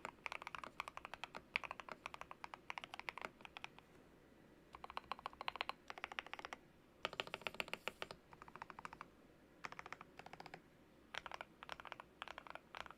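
Fast typing on an RK100 mechanical keyboard with lubed Ajazz Peach switches and Cherry-profile keycaps, the case dampened with tape, foam and bandage-wrap mods: runs of quick keystrokes in bursts with short pauses between them.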